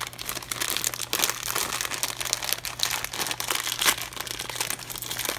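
Foil-lined plastic snack bag crinkling as it is handled and pulled open, a dense run of crackles.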